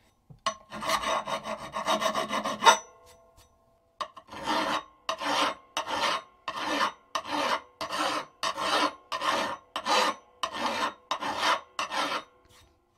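Hand file rasping across the rusty steel edge of a pick mattock blade, taking down high spots and nicks. A quick run of short strokes, a pause of about a second, then even strokes, about two a second.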